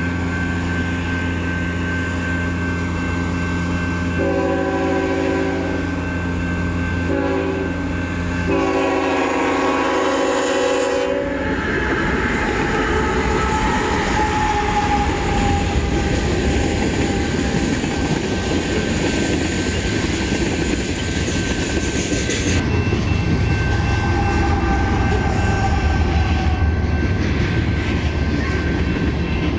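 Diesel freight locomotive approaching with its engine running, sounding its horn four times (long, long, short, long) for the grade crossing. Then the locomotives and freight cars roll past with loud wheel-on-rail noise.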